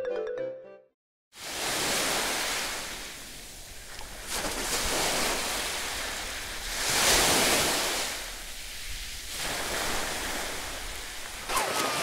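Sea waves washing on a beach: a rushing surf noise that swells and eases every few seconds, loudest about seven seconds in. A short tail of bright music cuts off just before it, about a second in.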